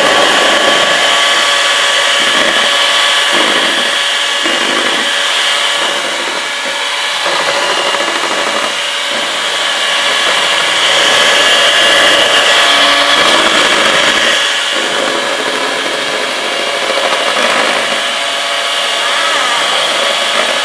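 Electric hand mixer running steadily, its beaters whipping a mixture of heavy cream, condensed milk and strawberry syrup in a plastic bowl; the motor's whine rises and falls slightly in level.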